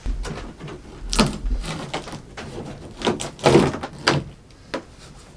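Several knocks and scraping clatters as a fiberglass interior cap above a bus windshield is worked loose with a flat hand tool. The loudest, longest one comes about three and a half seconds in.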